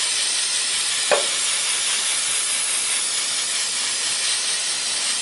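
Aerosol brake cleaner spraying in a steady hiss, washing brake fluid off steel brake lines and nearby parts.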